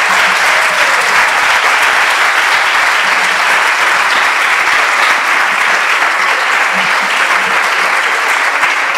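A large audience clapping steadily.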